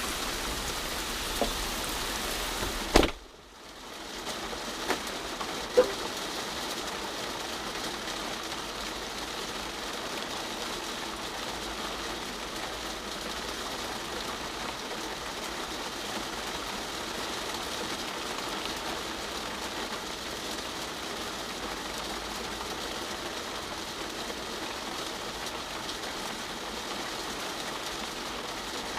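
Steady rain falling on a parked car. About three seconds in, a sharp click comes and the low hum of the Ford Mustang's idling engine stops abruptly, as though it has been switched off. Two sharp knocks follow a couple of seconds later.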